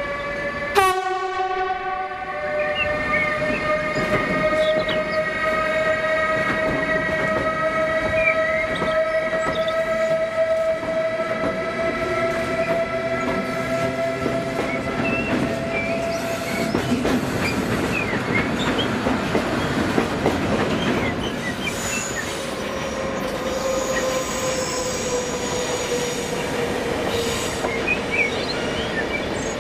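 Electric train running with a steady motor whine that rises slowly in pitch through the first half and then sinks lower, over a clatter of wheels on rail. There is a sharp click about a second in.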